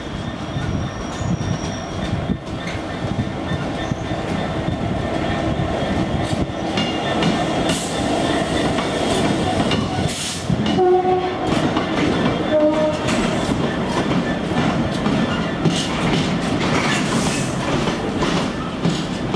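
Class 66 diesel locomotive, with its EMD two-stroke V12 engine, passing at speed at the head of a long container freight train. Its loaded container wagons then rumble and clatter steadily over the rail joints. A couple of brief tones cut in about eleven and thirteen seconds in.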